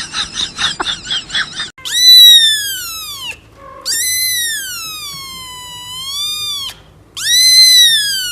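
An animal calling: first a quick run of wavering, squeaky cries, then three long, high, drawn-out calls, each rising and then falling in pitch. The middle call is the longest.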